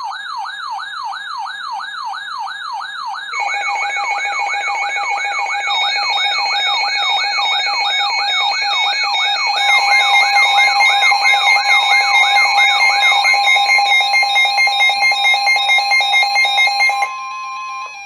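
Several weather alert radios sounding their warning alarms together: one gives a rapidly warbling siren, and others join with pulsed beeping tones about three seconds in and again near ten seconds. Underneath runs the steady NOAA Weather Radio warning alert tone, which is left on its own when the radio alarms stop about a second before the end.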